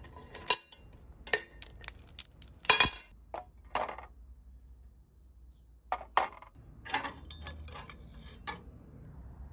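Steel objects clinking and tapping against each other with short, high ringing tones, in two flurries separated by a pause of about two seconds: old steel sheep shears being handled.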